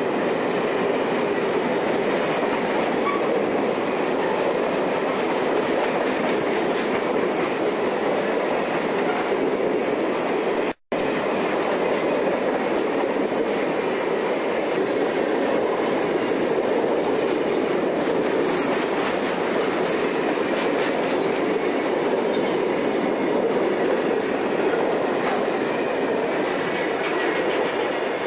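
A string of freight hopper cars rolling past at speed: steady rumble of steel wheels on the rails with repeated clickety-clack. The sound cuts out for an instant about eleven seconds in.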